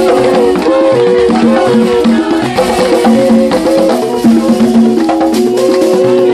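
Lively music: a melody of held notes stepping up and down, over rattles and percussion.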